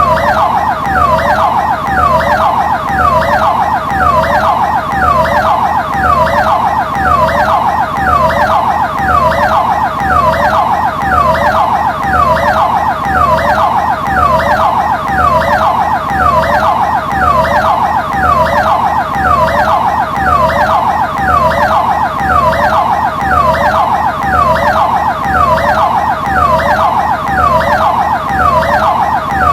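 Ambulance siren sounding continuously and loudly, its tone sweeping up and down in a fast, regular cycle that repeats without a break.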